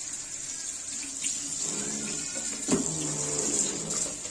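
Kitchen tap running steadily into a plastic colander of chopped leeks and carrots, the water splashing over the vegetables as they are rinsed.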